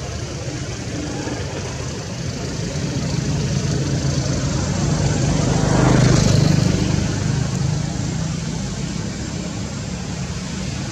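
Low, steady motor rumble of a passing vehicle, growing louder to a peak about six seconds in and then easing off.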